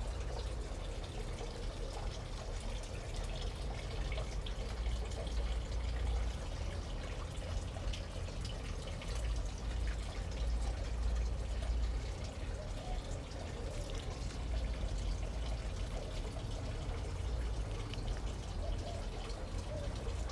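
Water trickling and dripping steadily, as into a garden basin, with a low rumble underneath.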